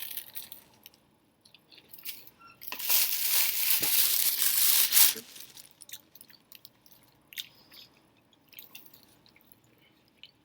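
Biting into the crisp fried crust of an apple pie: a loud crunching crackle about three seconds in that lasts a couple of seconds, then quiet chewing with small wet clicks.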